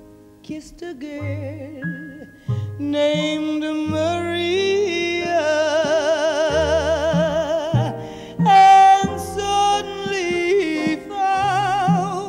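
A female jazz singer holds long notes with a wide vibrato, backed by piano, bass and drums. The first few seconds are quieter accompaniment before the voice swells in.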